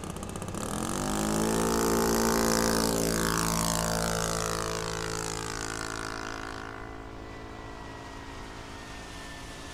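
Engine of a radio-controlled model Piper plane opening up to full throttle on its take-off run, loudest a couple of seconds in, then falling in pitch and fading as the plane passes and climbs away.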